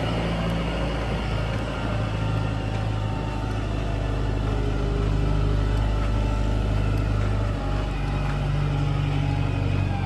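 JCB backhoe loader's diesel engine running steadily as the machine drives along a dirt track, its engine note shifting slightly near the end.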